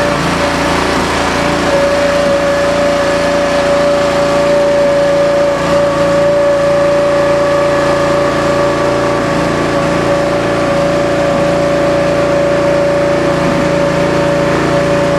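16-hp V-twin Briggs & Stratton gas engine running steadily, driving a tire baler's hydraulic pump. A steady high whine comes in about two seconds in and holds.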